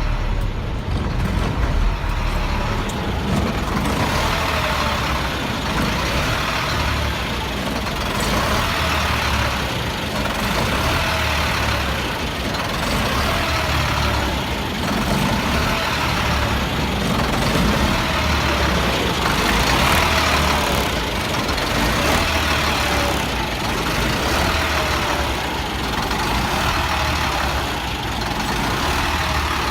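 1999 Freightliner diesel truck engine running with a regular rise and fall about every second and a half, a surge typical of a bad fuel pressure sensor.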